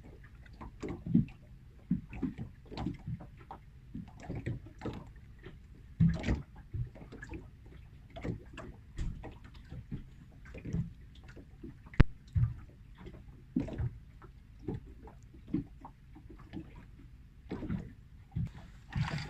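Small waves lapping and slapping irregularly against the hull of a small anchored boat. One sharp click about two-thirds of the way through.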